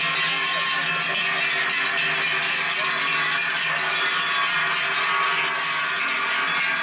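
Many large cowbells worn by a herd of walking cows, clanging and ringing on top of one another with no pause.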